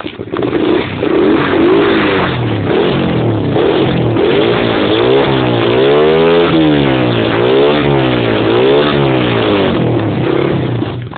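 Honda CR85's two-stroke single-cylinder engine, cold and with the exhaust baffle fitted, being revved up and down repeatedly, with several quick blips of the throttle in the middle.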